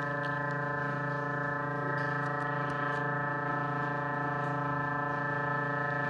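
Synthesized space-sonification 'sound' of Jupiter's moon Elara played back through a speaker: a steady, unchanging electronic drone made of many tones sounding at once.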